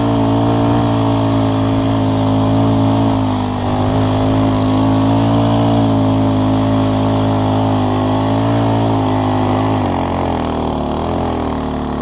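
Engine of a vehicle towing a bicycle by rope up a snowy trail, running steadily under load, then dropping in pitch about ten seconds in as it eases off.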